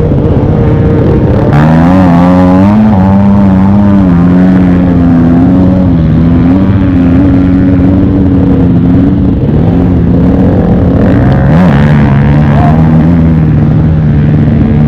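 Off-road motorcycle engine running hard at varying revs, the pitch climbing about a second and a half in and dipping twice near the end before picking up again.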